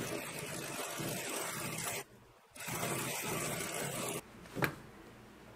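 Industrial sewing machine stitching in two runs, about two seconds and then about a second and a half, with a short pause between. A single sharp click follows near the end.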